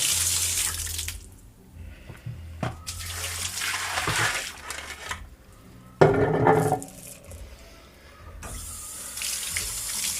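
Cold tap water running over freshly degreased chainsaw chains in a pan, stopping and starting several times, with a sudden clatter about six seconds in.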